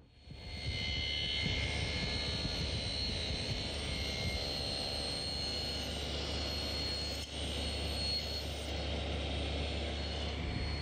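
Table saw running and cutting the cheek of a walnut tenon, the rail held upright in a tenoning jig: a steady motor-and-blade whine that comes up within the first second, with a brief dip about seven seconds in.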